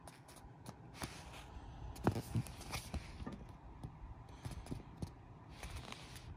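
Paper script pages handled: fingers rubbing and pressing on the sheets in faint rustles and scrapes, with a couple of soft knocks about two seconds in.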